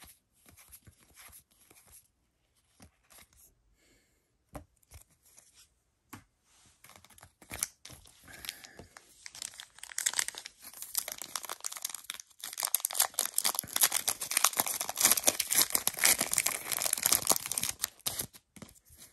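Faint clicks of trading cards being handled. Then, from about eight seconds in, the foil wrapper of a Pokémon Champion's Path booster pack crinkles loudly as it is torn open.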